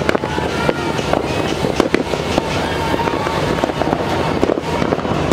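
Fireworks and firecrackers going off all around, a continuous din of many sharp bangs and pops at irregular intervals over a steady crackling hiss.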